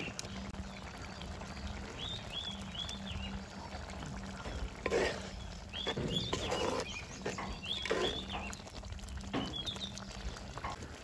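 Thick squid curry simmering in a clay pot and being stirred with a wooden spoon, with louder noisy bursts about 5, 6.5 and 8 seconds in. Short high animal calls repeat every second or two behind it.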